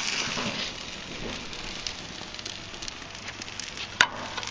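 Burgers sizzling on a gas grill: a steady hiss with scattered small pops, a little louder in the first second, and one sharper click about four seconds in.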